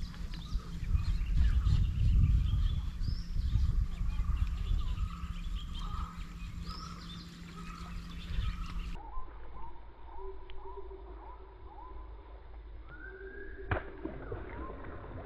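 Birds chirping and calling in short repeated phrases, over a low rumble that cuts off about two-thirds of the way through, leaving the calls over a quieter background.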